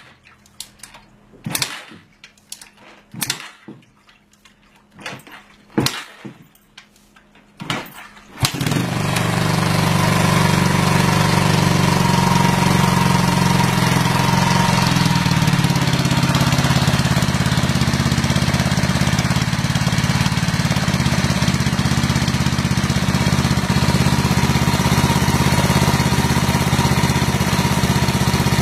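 A series of separate clicks and knocks, then about eight seconds in an engine starts and runs steadily.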